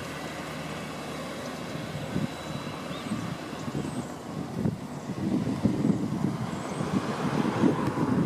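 A 2006 Acura RSX Type-S's four-cylinder engine and road noise as the car drives at a distance: a low, unpitched rumble that grows louder over the last few seconds as it comes closer.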